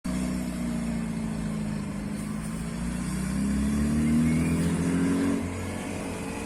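Car engine running, its note climbing in pitch and loudness for a couple of seconds as it is revved or accelerates, then falling back suddenly about five seconds in.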